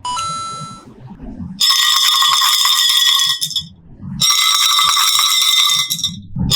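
A bright, bell-like rattling buzz with many high ringing tones, heard twice for about two seconds each, with a short low rumble before each burst.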